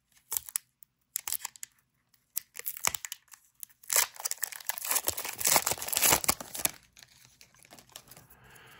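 Disney Lorcana trading-card booster pack being torn open and its wrapper crinkled. Scattered short rustles come first, then a dense stretch of crinkling from about four to seven seconds in, fading to light handling.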